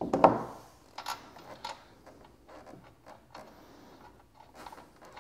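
A clunk, then a few small separate metal clicks as the axle rod and its nut are fitted through a mobility scooter's front wheel hub.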